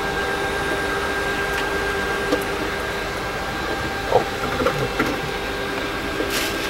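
Steady electrical hum and whine of a Tupolev Tu-134B's flight deck with its engines not yet started, a few light knocks about four to five seconds in, and a short hiss near the end.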